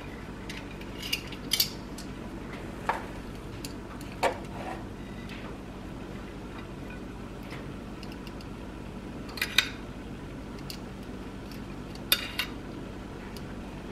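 Dishes and serving utensils clinking now and then, about six short sharp clinks spread out, as food is plated. A steady low hum runs underneath.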